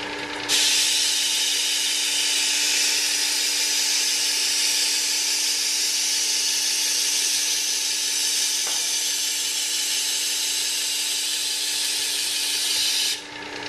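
Work Sharp WS3000 belt sharpener's motor running with a steady hum while a kitchen knife's edge is drawn against its coarse-grit abrasive belt. This gives a loud, continuous grinding hiss that starts about half a second in and stops shortly before the end, leaving the motor running alone.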